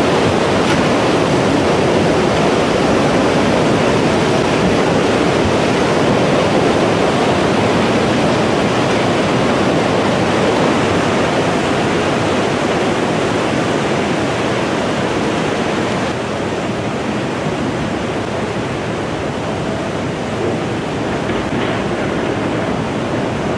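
Tsunami floodwater surging and rushing: a continuous, fairly loud rush of churning water that eases a little about two-thirds of the way through.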